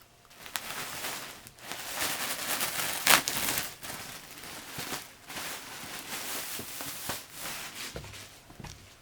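Packaging rustling and crinkling as it is handled, in uneven spells with a sharp crackle about three seconds in.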